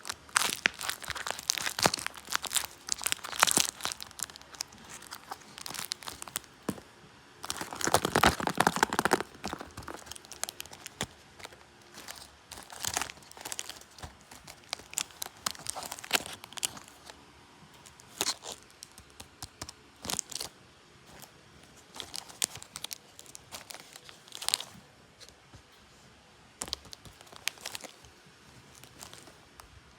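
Paper being handled, crinkling and crumpling in quick, irregular bursts, densest at the start and again about eight seconds in, sparser and more scattered after that.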